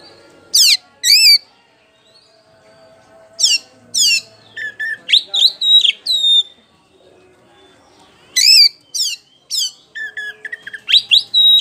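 Oriental magpie-robin singing loudly: phrases of strong whistles sliding down in pitch, mixed with runs of quicker, varied notes, in bursts with short pauses between.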